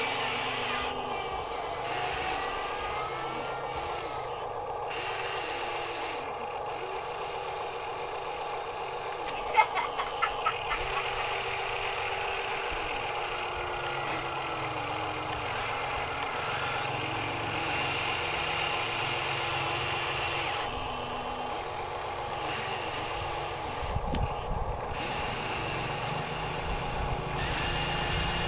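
Huina RC excavator's electric motors whirring as the boom, arm and bucket work, the pitch swooping up and down each time a motion starts and stops, over a steady hum. About ten seconds in, dirt and stones scrape and rattle in a quick run of clicks.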